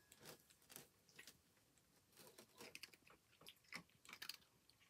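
Faint, irregular crackling and clicking from a cat nosing and pawing at a felt cat tunnel toy.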